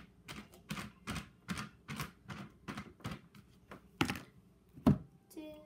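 Slime being squeezed and kneaded by hand, making a quick run of wet clicks about three to four a second, with two louder squelches about four and five seconds in.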